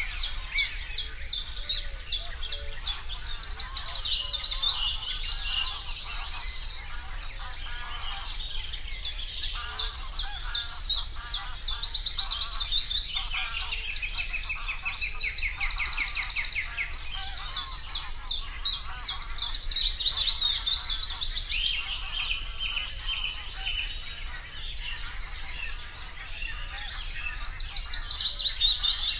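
Reed warbler singing: a long, continuous, chattering song of fast repeated notes and trills, high-pitched, with only brief let-ups.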